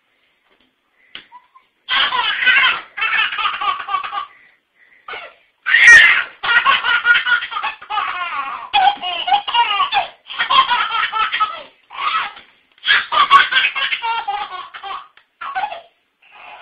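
Baby laughing in repeated, breathy belly-laugh bouts, starting about two seconds in and running on with short pauses.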